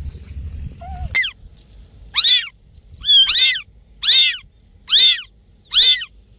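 A cat meowing over and over: short, high-pitched calls that rise and fall in pitch, about one a second, six in a row starting about a second in.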